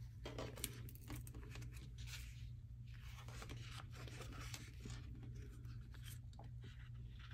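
Faint rustling and light ticks of paper as the pages of a sticker book are turned and handled, over a steady low room hum.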